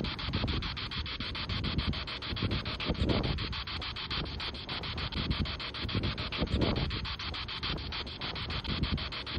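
Amplified recorder hiss, choppy with rapid even clicks, over low rumbling gusts of wind on the microphone. This is playback of a recording the investigator presents as a Class A EVP of a voice saying "I'm twelve".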